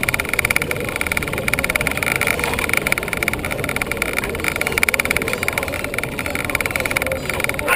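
A steady mechanical drone with a fast, even rattling flutter and a steady high hum.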